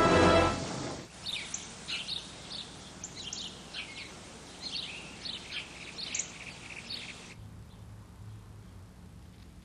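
Music ends within the first second. Then birds chirp with many short, high, falling chirps for about six seconds, cutting off abruptly about seven seconds in, after which only a faint low hum remains.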